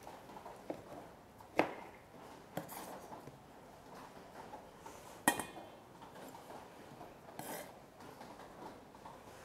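Kitchen knife chopping spinach leaves on a wooden cutting board: a few separate, irregular knocks of the blade on the board. The sharpest come about a second and a half in and just after five seconds.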